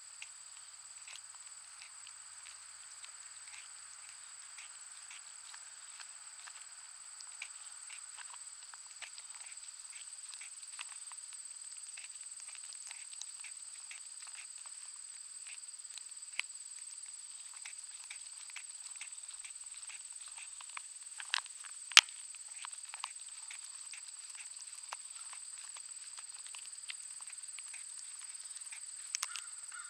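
A Schnauzer–pug mix dog chewing and gnawing a bone: irregular crunches and clicks, with one sharp, louder crack about two-thirds of the way through.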